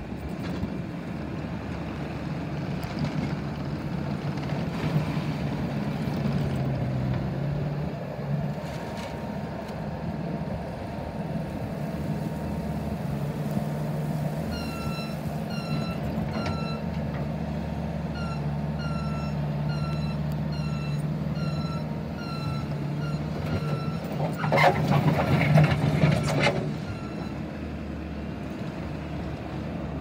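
Bobcat T650 compact track loader's diesel engine running steadily as it works on gravel. Its reversing alarm beeps about one and a half times a second for roughly nine seconds past the middle, and a few seconds later comes a louder rush of noise lasting about two seconds.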